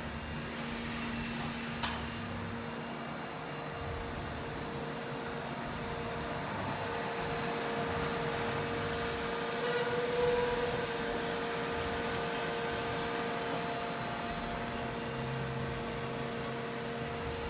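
Wind 100 V CNC machining centre running with a steady whine, with a single sharp click about two seconds in.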